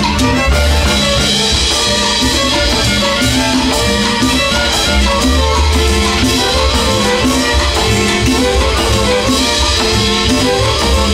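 Live instrumental passage by a string band: several violins playing the melody together over strummed acoustic guitars, double bass, congas and drum kit, with a steady dance rhythm.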